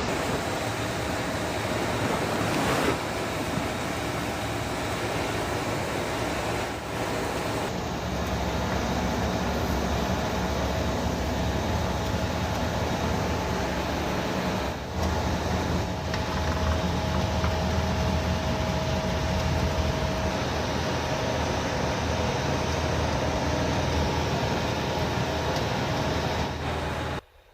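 Steady running noise of pipe-making factory machinery, a dense mechanical drone with a faint steady whine. The mix changes abruptly several times, getting a heavier low hum about eight seconds in.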